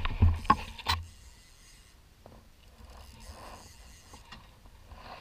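Several sharp knocks and low thumps in the first second, then quiet scraping and rustling of gear in a small fishing boat.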